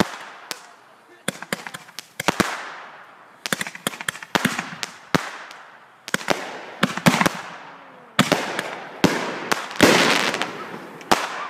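Consumer aerial fireworks going off in volleys: sharp bangs in clusters every second or two, each trailed by a fading crackle and hiss as the shells burst into glittering stars.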